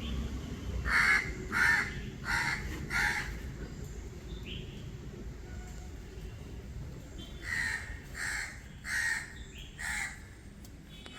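A crow cawing: four harsh caws in a steady run about two-thirds of a second apart, then after a pause of a few seconds another run of about four.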